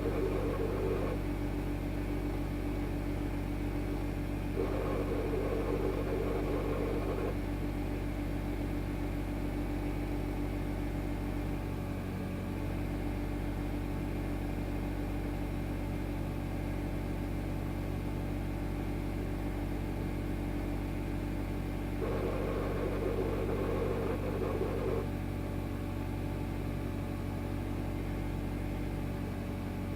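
Mitsubishi Lancer Evolution X's 2.0-litre turbocharged four-cylinder engine idling steadily, with an abnormal harsher noise that comes in three times for a few seconds each. The owner reports this noise at cold start-up and at idle.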